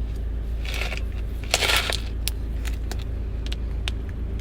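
Steady low hum of a car running while parked, heard from inside the cabin, with two short crackling noises about a second in and just before two seconds, the second louder, and a few light clicks.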